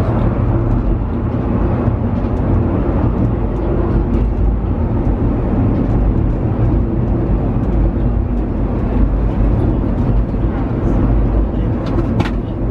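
Steady rumble and hum of a moving funicular railway car, heard from inside as it runs along the rails, with a brief click near the end.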